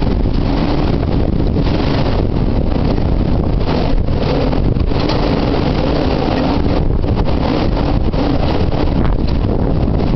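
Typhoon wind blowing hard across the microphone: loud, steady wind noise that swells and eases in gusts.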